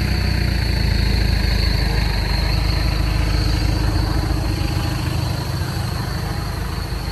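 A vehicle's engine running with a steady low rumble that eases off slightly near the end.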